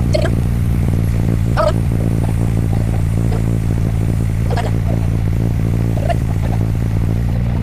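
Motorcycle engine idling steadily, with a few brief high chirps over it.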